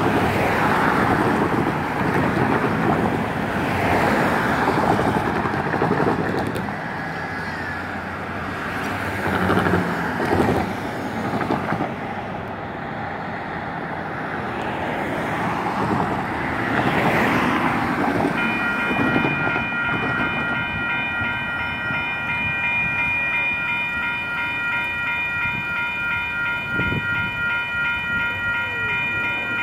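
Broad traffic and rail noise rising and falling, then, about 18 seconds in, electronic railroad crossing bells start ringing in a fast, even pulse. The crossing on the freight track is activating far too early for an approaching freight train, which is a detection malfunction.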